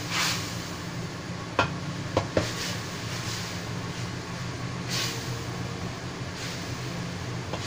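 Metal ladle stirring in a steel wok, clinking sharply against the pan three times between about one and a half and two and a half seconds in, with softer scrapes later, over a steady low hum.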